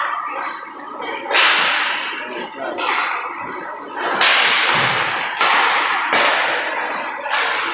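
Hockey sticks and pucks cracking against the ice and boards during play, about five sharp cracks, each echoing for about a second in the rink.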